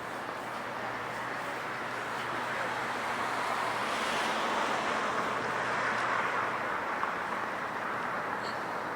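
Street traffic rushing past, swelling about halfway through as a vehicle goes by and then easing off.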